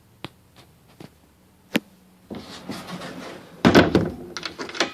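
Wooden sliding bathroom door slid along its track and shut with one solid thunk about three-quarters of the way through, followed by a few quick metallic clicks of its chrome latch being worked. A few light clicks and handling sounds come before it.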